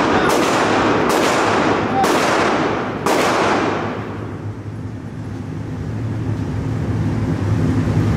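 Four gunshots about a second apart, echoing in an indoor shooting range, followed by a steady low hum.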